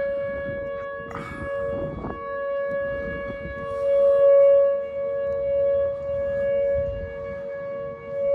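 Outdoor tornado warning siren sounding a steady wail on two close pitches held together, its loudness swelling and fading, loudest about halfway through and again at the end. A couple of short knocks come near the start.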